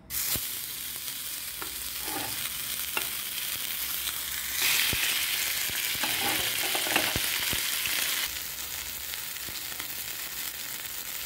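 Tenderloin steaks sizzling in hot olive oil in a ridged grill pan, starting suddenly as the meat goes down. The sizzle is louder from about four and a half to eight seconds in.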